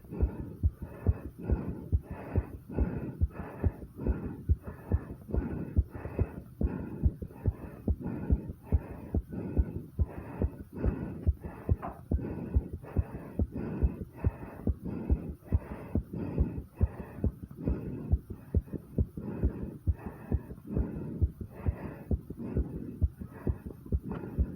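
A person's fast heartbeat, raised by 50 squats of exercise: a quick, steady run of low thumps.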